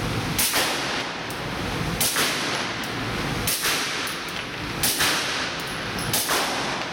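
Five suppressed 9mm pistol shots from a Glock 19 fitted with an AWC Titanium Abraxas wet suppressor freshly packed with lithium grease, fired about one and a half seconds apart. The rounds are 147-grain Winchester ammunition, and each shot echoes briefly in the indoor range.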